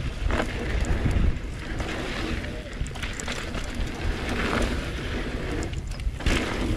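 Mountain bike riding down a rough singletrack trail: wind rushing over the camera's microphone, with a steady rumble and the bike rattling and knocking over bumps a few times.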